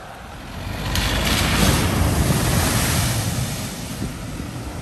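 A car driving through a flooded ford, its tyres sending up a loud wash of water that starts suddenly about a second in and fades away over the next two to three seconds, over the steady rush of floodwater.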